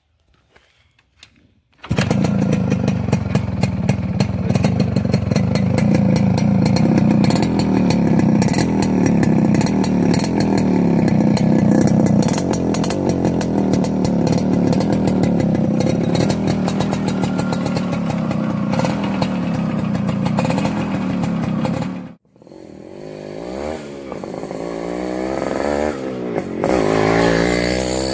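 A 1995 Yamaha RX-100's 98 cc two-stroke single-cylinder engine starts up about two seconds in and is revved over and over, its pitch rising and falling with the throttle. Near the end the sound drops away sharply, then returns quieter and climbs in pitch as the bike rides off.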